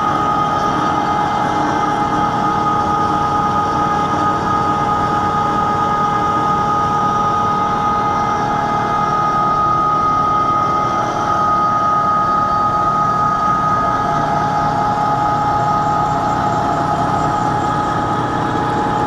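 Bridgeport milling machine running with its power quill feed engaged, the spindle's hole cutter plunging steadily into steel pipe. It makes a steady mechanical whine with the grinding noise of the cut.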